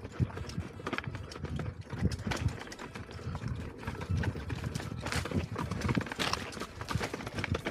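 Electric unicycle ridden over a rough off-road trail: an irregular clatter of sharp knocks and low thumps, several a second.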